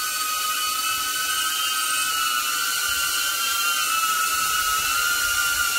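DJI Avata FPV drone's propellers whining steadily in flight, several close tones that waver slightly in pitch as the motors adjust.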